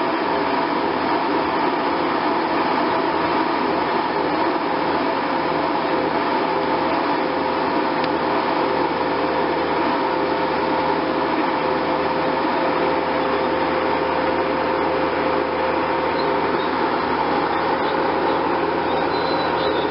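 Bobcat skid-steer loader running steadily while it works a hydraulic tree spade: an even engine drone with a couple of steady humming tones and no breaks.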